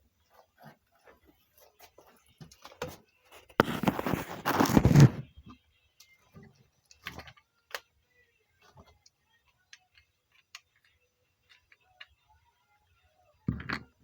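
Handling noises from a cough medicine bottle: scattered small clicks and ticks, with a louder rustling burst lasting about a second and a half, about four seconds in, and a short one near the end.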